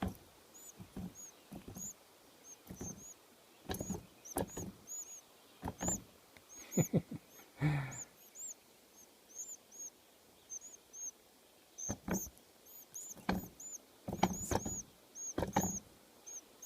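Nestling birds, which the owner takes for house finches, giving many short high-pitched begging chirps in quick irregular runs, set off by tapping on the nest. Sharp taps and knocks on the nest sound among the chirps and are the loudest sounds.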